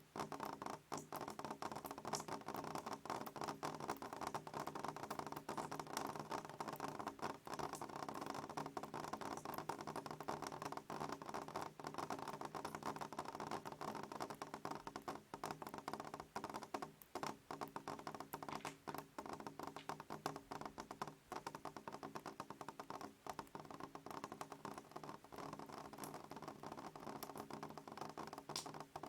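Rain pattering: a dense, irregular stream of drops tapping, over a steady low hum.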